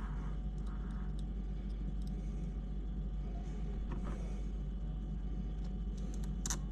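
A steady low hum runs throughout, with a few light clicks and taps of small screws and plastic parts being handled, the sharpest one just before the end.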